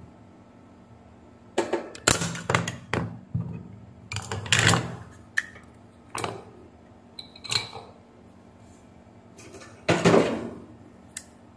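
Plastic case of a mobile phone charger being pried apart with a screwdriver and a hobby knife: an irregular series of sharp clicks, cracks and knocks of plastic and steel tools, the loudest near the end.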